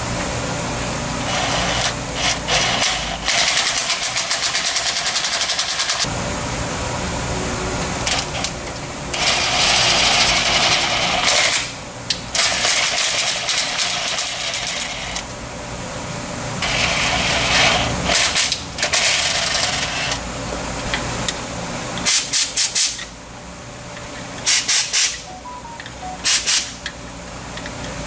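Compressed-air blow gun hissing in blasts of a second or two, then in several short quick bursts near the end, blowing out the bolt holes of a Pontiac 400 engine block.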